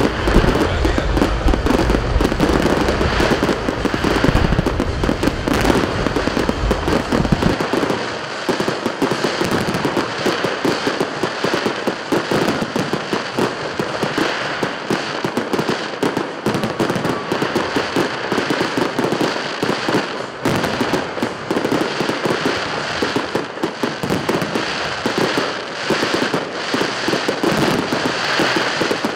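Aerial fireworks display: a dense, continuous crackle and pop of bursting shells. Deep booms underlie it for the first seven seconds or so, then fall away, and the crackling goes on.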